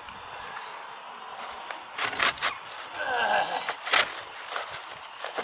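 Handling noises of roofing underfelt and roof tiles being worked by hand: sharp clicks and scrapes from about two seconds in, with the loudest knock about four seconds in.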